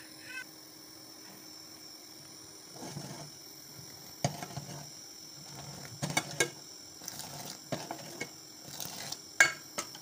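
Steel ladle stirring milky chai in a steel pot, knocking and clinking against the pot's sides and bottom at irregular moments. The loudest knock comes near the end.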